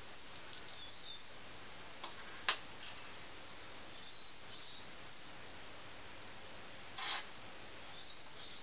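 Small clicks and a short scrape as the tiny parts of a scale model excavator boom are handled on a tabletop, over a steady hiss. A few faint bird chirps come through three times.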